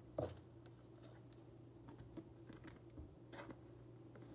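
Faint handling of glossy Panini Illusions football trading cards, with soft clicks and slides as cards are shuffled from the back to the front of a pack in the hands, over a low steady hum.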